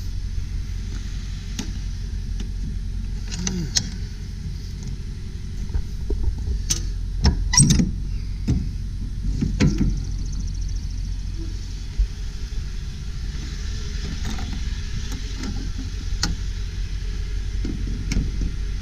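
Metal clanks and knocks of a box truck's rear cargo door being swung open and its latch set to hold it, over a steady low rumble. The loudest clanks come about halfway through.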